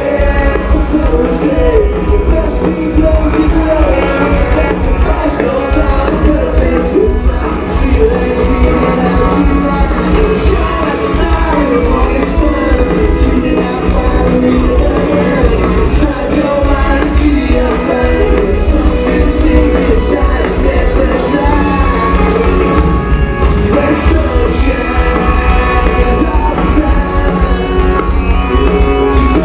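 Rock band playing live: electric guitars, drums and a sung lead vocal, loud, with a heavy low end, heard from the crowd in a large hall.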